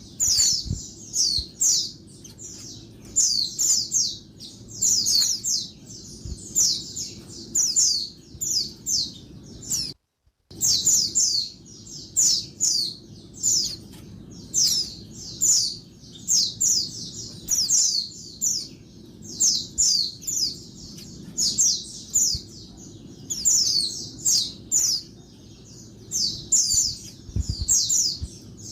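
Female white-eye (pleci) calling noisily: quick clusters of short, thin, high chirps, several a second, with a brief break about ten seconds in.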